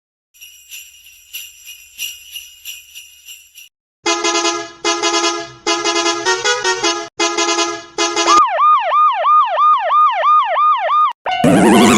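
A run of electronic siren and alarm sound effects. First comes a high jingling ring, then a pulsing electronic tone about twice a second, then a fast rising-and-falling siren wail. Near the end a loud jumble of many overlapping sounds cuts in.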